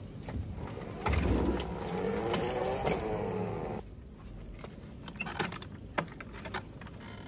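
Walk-behind lawn mower, engine off, rolled down a metal mesh trailer ramp: a rattling rumble for nearly three seconds, then a few sharp clicks and knocks as it is handled on the concrete.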